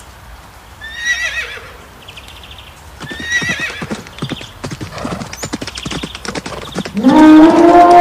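Stampede sound effect: a horse whinnies twice, then many hooves gallop in a dense clatter, with short buzzy calls in between. Near the end a loud, long, low-pitched animal call comes in and takes over.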